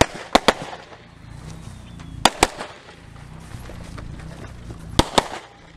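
Handgun shots outdoors, fired in quick pairs: three double-taps, two shots a fraction of a second apart, with about two to three seconds between pairs as the shooter moves to the next targets.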